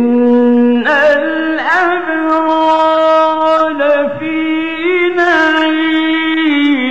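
A man reciting the Quran in slow, melodic tajweed style, drawing one phrase out in a long, ornamented line that steps up in pitch about a second in and wavers through turns before closing near the end.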